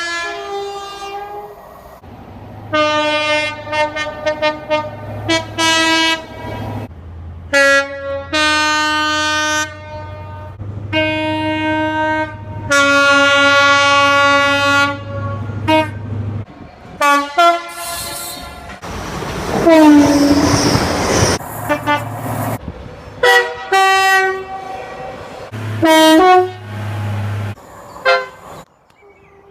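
British train horns sounding in a run of separate clips: two-tone blasts, some short toots and some held for a couple of seconds, over a low engine rumble. About twenty seconds in, one horn slides down in pitch over a rush of noise.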